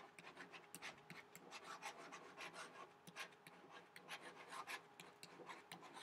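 Faint scratching and tapping of a stylus writing on a tablet: many short, irregular strokes.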